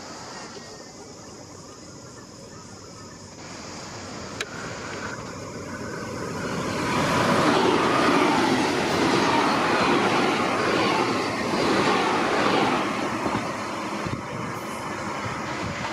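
Queensland Rail NGR electric multiple unit running into the station and along the platform: its wheel-and-motor rumble builds, is loudest for several seconds mid-way as the cars pass close by, then eases off. A single sharp click sounds a little before the rumble swells.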